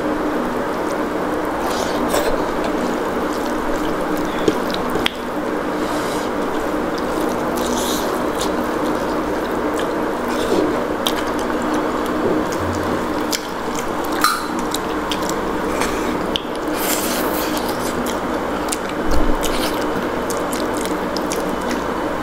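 Wet food and mouth sounds of eating rice with chicken curry, with scattered small clicks, over a steady background hiss.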